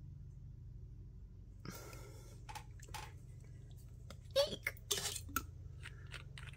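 A glass nail polish bottle handled on a table and its cap unscrewed: scattered clicks, taps and short scrapes, busiest and loudest about four to five and a half seconds in, over a steady low room hum.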